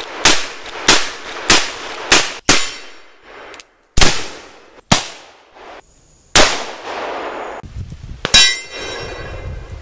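A string of about nine black powder gunshots from cap-and-ball revolvers and a long gun, each a sharp crack with a short decaying echo, cut together with abrupt breaks. Near the end a hit on a hanging steel plate target rings on.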